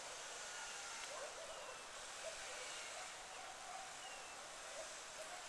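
Faint outdoor background hiss with a few faint, short high calls scattered through it.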